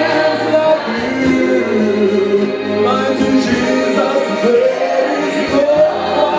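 Live gospel worship music: a band playing with a steady beat, and a singing voice.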